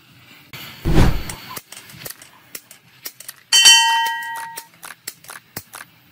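Metal-on-metal impacts from a gear puller working on a motorcycle flywheel under a gas torch: a short hiss and a heavy low thump about a second in, then a sharp clang that rings for about a second, with scattered clicks and taps in between.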